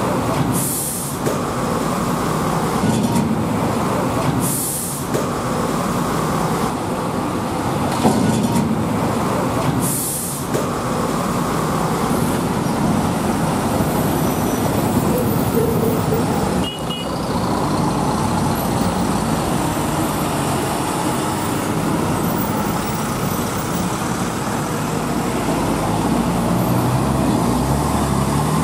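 Heavy diesel goods trucks running slowly past in a line of traffic, their engines rumbling steadily. Three short hisses of air brakes come about one, five and ten seconds in.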